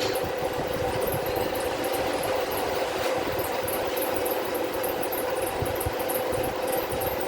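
Machining equipment running steadily with a constant hum and a fast, even high-pitched ticking over it.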